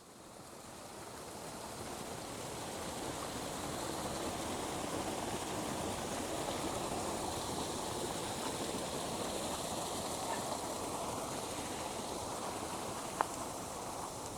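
Steady rush of flowing water, fading in over the first couple of seconds, with a single sharp click near the end.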